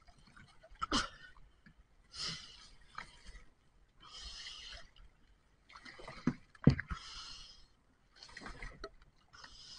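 Water sloshing and bubbling around a submerged camera as a fishing net moves past it, in short bursts of hiss every second or two, with a few sharp knocks, one louder than the rest after about six and a half seconds.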